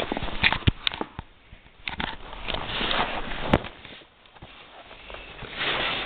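Close handling noise as a camera is moved about and set down on a hay-strewn pen floor: rustling, scattered clicks and two sharp knocks, one about a second in and one in the middle.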